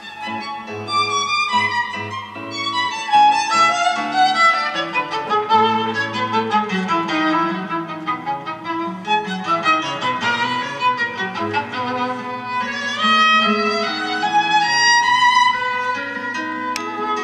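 Violin music playing back through a handmade vacuum-tube audio amplifier: sustained bowed notes in long falling and rising runs.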